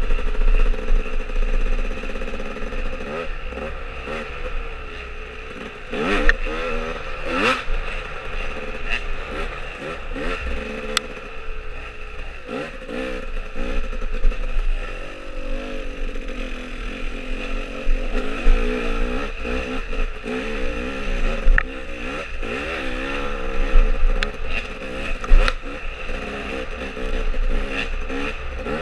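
Dirt bike engine heard from the rider's own machine, revving up and falling back again and again as it rides a rough trail, with frequent knocks and clatter from the bumps.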